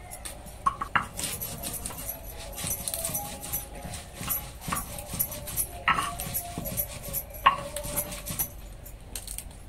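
Leaf stalks being snapped and torn off kohlrabi bulbs by hand, with crinkling of a plastic sheet: a run of sharp snaps, the loudest about a second in, near six seconds and near seven and a half seconds. Faint thin whining tones come and go in the background.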